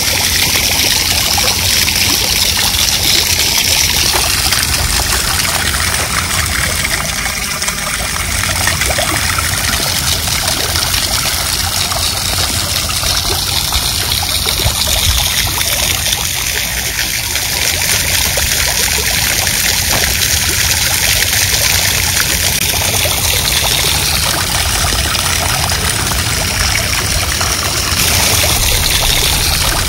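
Water from a pedestal fountain splashing and trickling steadily into a shallow pebble-lined basin, with a steady low rumble underneath.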